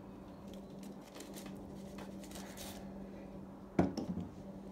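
Metal bar clamps being loosened and taken off a wooden chair seat: light clicks and rubbing, then one sharp knock near the end as a clamp comes free. A steady low hum runs underneath.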